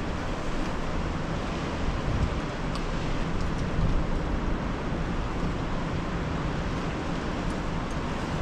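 Steady wind buffeting the microphone over the wash of ocean surf against the rocks, with a deep uneven rumble and no distinct events.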